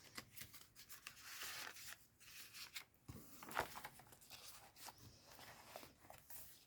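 Faint rustling of paper and card pages being turned in a handmade Coptic-stitched journal, with a few soft clicks and taps about halfway through.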